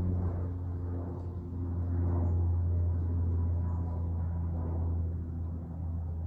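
A small aircraft flying overhead: a steady, low engine drone that swells slightly about two seconds in.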